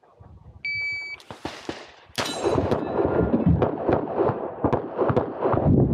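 An IPSC shot timer gives its start signal, one short high beep about half a second in. About two seconds in, pistol shots begin and go on in a rapid string, sharp cracks a fraction of a second apart over steady noise.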